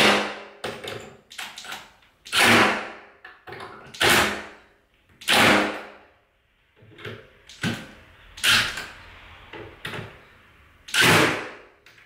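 Hinge screws being driven back into the door jamb: a run of about eight short, loud bursts with brief pauses between them.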